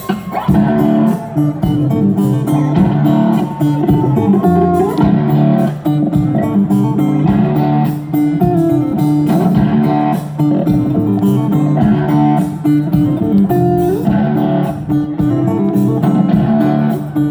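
Live country band playing the instrumental opening of a song, led by electric guitar with upright bass beneath.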